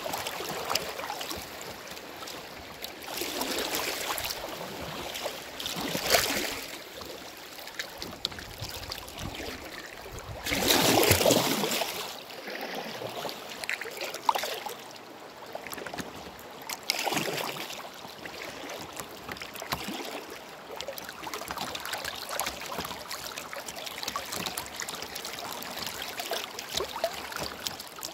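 Shallow glacial river flowing over a rocky bed: a steady wash of water with several swells of louder splashing, the loudest about eleven seconds in.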